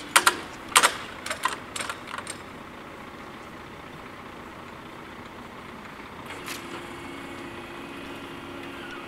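Level crossing barrier booms clanking sharply several times in the first two seconds as they come to rest in the down position. About six seconds in, a click is followed by the steady hum of the barrier drives as the second pair of booms starts lowering.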